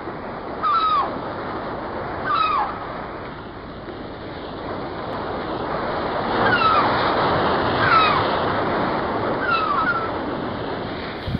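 Ocean surf washing steadily, swelling louder in the middle. A seabird gives a short falling cry five times at uneven gaps.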